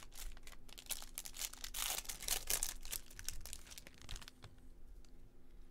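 Baseball-card pack wrapper crinkling and tearing as a pack is opened, loudest about two to three seconds in. It gives way to a few light clicks of cards being handled near the end.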